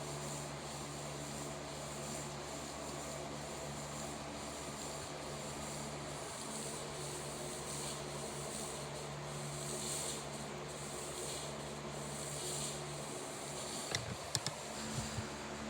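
A steady rushing hiss over a constant low machine hum, with a few sharp clicks near the end.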